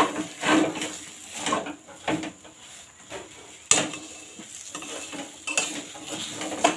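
Metal spatula scraping and knocking against a metal kadai while stirring ghee into a thick, almost dry coconut and semolina dough. The strokes come irregularly, with one sharper knock a bit past halfway.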